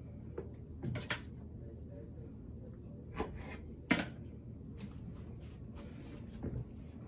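Four short knocks and light clatters, the sharpest about four seconds in, as a kitchen knife and cucumber pieces are handled on a cutting board while a vegetable garnish is arranged, over a low steady background hum.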